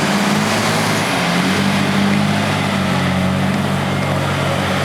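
Heavy diesel engine of a large earthmoving machine running steadily as it comes along, its note shifting slightly about a second and a half in.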